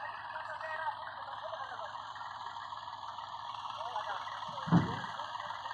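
Men's voices talking over a tractor engine idling with a low steady hum, and one short loud thump about three-quarters of the way through.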